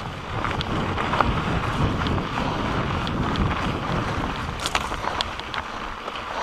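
Mountain bike descending a dirt trail at speed: wind buffeting the camera microphone over the rumble of knobby tyres on dirt. Sharp rattles and clicks from the bike come over bumps, in a cluster about three-quarters of the way in.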